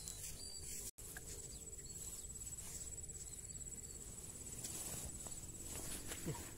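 Insects trilling in one steady high, finely pulsed note, over soft rustling of footsteps through grass. The sound cuts out for an instant about a second in.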